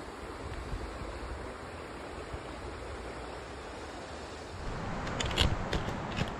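Shallow trout stream flowing steadily over rocks, with a few short sharp knocks or splashes near the end.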